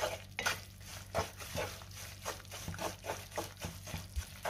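Wooden spatula stirring and scraping chopped jaggery as it melts in ghee in a non-stick pan, in short strokes about twice a second. The jaggery is only being melted, not boiled into a syrup.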